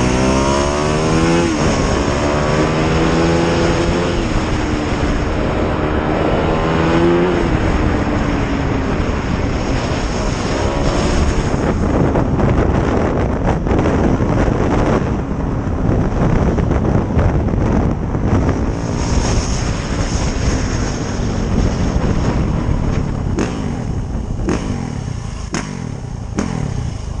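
A vehicle engine accelerating through the gears, its pitch climbing and dropping at each shift three times in the first eight seconds. Then a long stretch of steady wind and road noise, and the engine climbing again at the very end.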